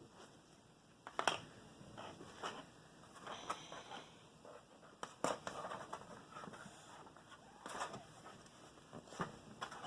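Play-Doh being handled and pressed, with scattered small clicks, taps and scrapes of clay tools and plastic pieces on a table.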